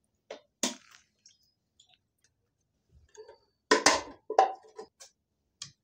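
A few separate light clicks and knocks of dishes and food being handled as eating begins, the loudest cluster about four seconds in.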